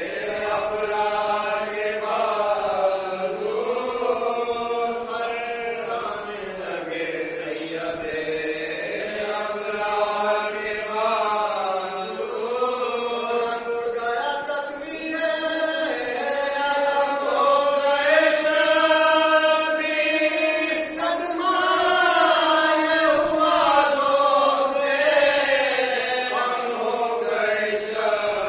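Men's voices chanting a marsiya, a Muharram mourning elegy in Urdu, together in chorus without instruments, in long held notes that rise and fall.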